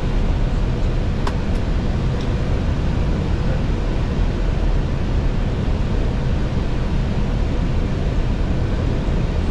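Steady cockpit noise of an Airbus A320, an even rush of air and engine sound heaviest in the low end, with a couple of faint clicks about a second in.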